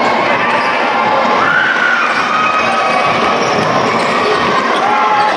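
Basketball game noise: a ball dribbling on the court under a steady din of crowd voices and children shouting.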